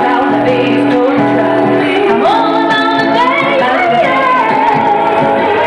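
Three women singing a song live in close harmony through a small PA, with acoustic guitar accompaniment. The voices hold long notes and slide between pitches, in a poor-quality, dull-sounding recording.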